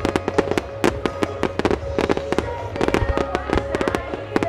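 Starmine fireworks barrage: a dense, rapid string of shell bursts and crackling bangs, several a second, over music played along with the show.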